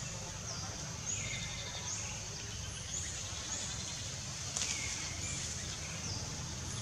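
Outdoor tree-canopy ambience: a steady high buzz runs throughout, with a series of short calls that slide down in pitch and repeat every half second to a second, over a low, even rumble.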